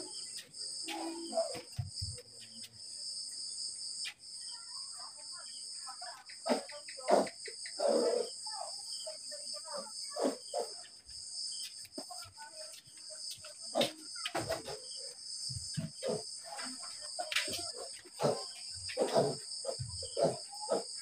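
Crickets chirring steadily in two high-pitched bands. Over them come scattered short knocks, scuffles and rustles as a newborn piglet is held and handled for an injection, loudest about seven to eight seconds in.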